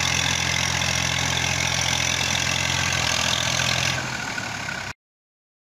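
Massey Ferguson 240 tractor's three-cylinder diesel engine running steadily as it hauls a heavily loaded trolley through mud. About four seconds in the sound drops and changes, and it cuts off abruptly a second later.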